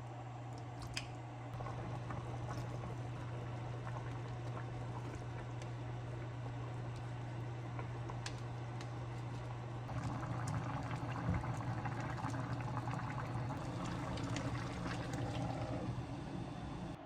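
Water running from a kitchen tap into a sink, with scattered light clicks, under a steady low hum. The water gets louder about ten seconds in.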